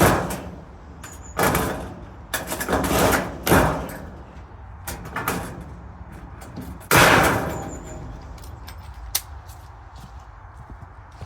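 Thin steel raised-bed panels being handled, clanking and scraping in a series of sudden clatters, the loudest about seven seconds in, with smaller metallic clicks between.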